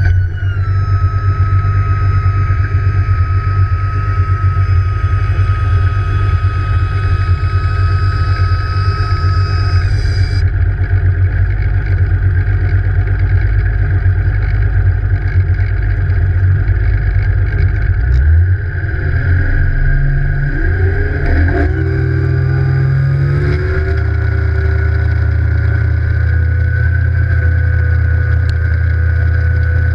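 Evinrude E-TEC 150 HO two-stroke outboard motor running steadily at low speed, then revving up partway through as the boat gets onto the plane, holding at higher revs to the end with water rushing past the hull.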